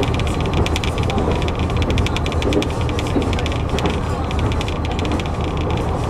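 KiHa 121 diesel railcar running at speed, heard from inside the cabin: a steady low drone of engine and wheels on rail. Over it comes a fast rattle of sharp clicks that thins out near the end.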